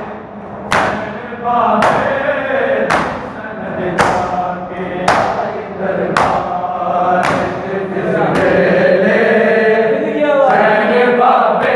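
A group of men chanting a nauha in unison, with sharp slaps of hands striking bare chests (matam) together about once a second. The chest beats stop about eight seconds in while the chanting goes on.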